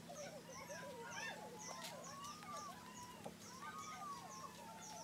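Chickens clucking and calling in overlapping, wavering notes, with a short high chirp repeating about twice a second.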